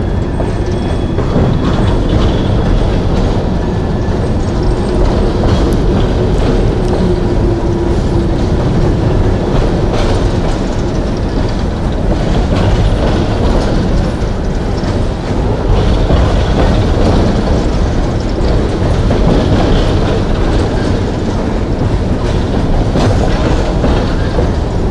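Long train of coal hopper cars rolling past close by: a steady, loud rumble and clatter of steel wheels on the rails.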